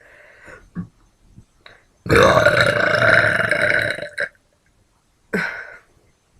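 A female voice's deliberate, practised burp, long and loud, starting about two seconds in and lasting about two seconds. A second, shorter burp follows near the end.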